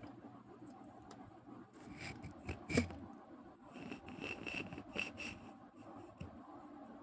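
Domestic cat snoring in its sleep: two breathy, rasping breaths, the first about two seconds in and the second about four seconds in, this one with a fluttering rattle. A sharp click comes near the end of the first breath.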